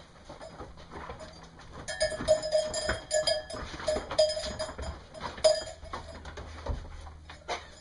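Sheep bleating in a crowded pen, a run of calls at one steady pitch over a few seconds in the middle, with scattered knocks and scuffs of the flock jostling.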